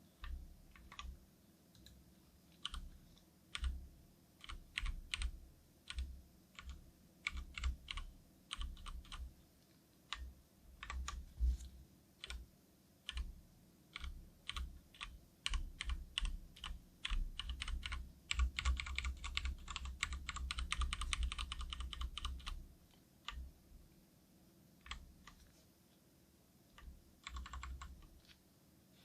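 Keystrokes on a Cherry MX Board 3.0S mechanical keyboard with linear Cherry MX Red switches. There are scattered single presses, a quick run of fast typing about two-thirds of the way through, and a short flurry near the end.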